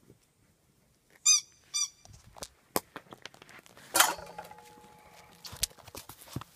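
Two short, high squeaks about half a second apart as German Shepherd puppies play with toys. About four seconds in comes a loud clatter as a metal bowl is knocked and rings for about two seconds, among scattered clicks and scuffs on concrete.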